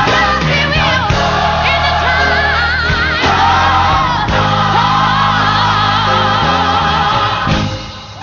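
Gospel music: a choir singing with vibrato over sustained bass and accompaniment, the music fading away near the end.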